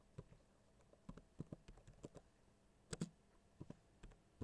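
Faint computer keyboard typing: keys tapped in short irregular runs, with two louder keystrokes about three seconds in.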